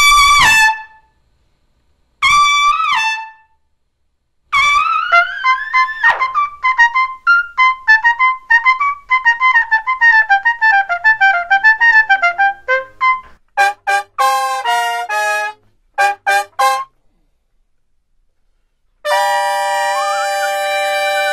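Solo trumpet playing short excerpts separated by silences: a single note, then an upward slide into a fast run of many quick notes, then a few short detached notes. Near the end a long held tone begins.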